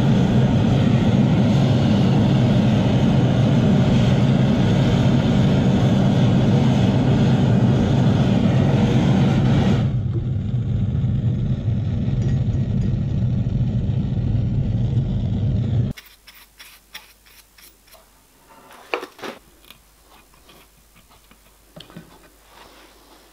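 Gas blowtorch flame hissing steadily as it heats small steel filing discs to harden them. It stops about sixteen seconds in, leaving light clicks of the metal parts being handled and set in a vise.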